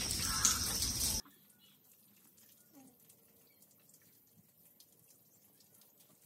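Steady, even rushing noise like running water or rain that cuts off abruptly a little over a second in, followed by near silence with a few faint ticks.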